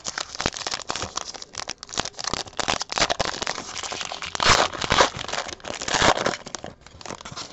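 Foil wrapper of a baseball card pack crinkling as it is torn open by hand, an irregular crackle with louder bursts past the middle and again near the end.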